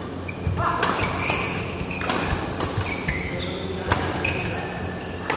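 Badminton rally: rackets strike the shuttlecock in sharp cracks about one to two seconds apart, and court shoes squeak briefly on the floor between the hits. A steady low hum runs underneath.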